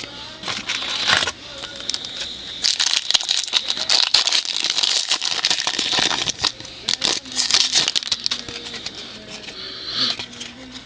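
Crinkling and crackling of a foil trading-card pack being opened, with cards rustling and clicking as they are handled. It is densest about three to seven seconds in.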